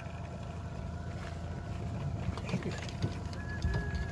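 A boat motor idling with a steady low hum, under faint rustling and handling noises as paper towels and a salmon are worked on a fish-cleaning table.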